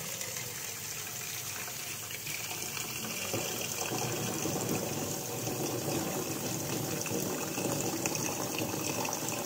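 Kitchen tap running, its stream splashing onto eggs in a stainless steel pot as cool water fills it to rinse the just-heated eggs. The water sound grows a little fuller about three seconds in.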